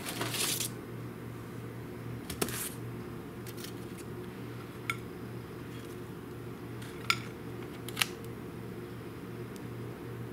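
Foil-lined baking tray being slid out of a toaster oven, a short scrape and rattle, then a few sharp metallic clicks and taps as the foil tray and cookies are handled, over a steady low hum.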